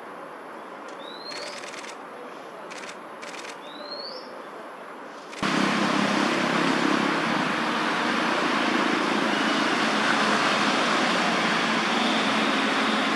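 A bird's short upward-sliding call, given twice a few seconds apart, with a few sharp clicks between. About five seconds in the sound cuts abruptly to a much louder, steady rushing noise with a low hum under it.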